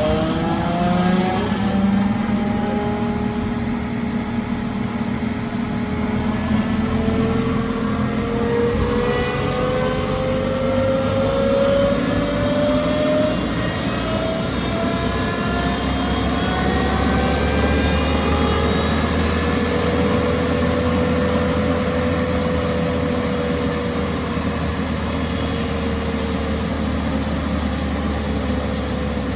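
Cat 299 compact track loader's diesel engine and hydraulics running. The engine revs up at the start, then a whine slowly rises in pitch and holds steady, with a deeper hum joining after about fifteen seconds.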